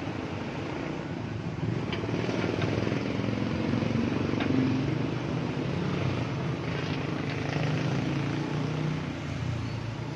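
Motor vehicles running and passing on the road, a steady engine hum that swells and fades twice, with a few light clicks.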